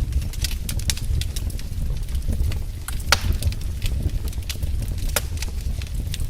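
Wood fire burning in a fireplace: a steady low rumble of flames with irregular crackles and snaps, and a louder pop about three seconds in and another about five seconds in.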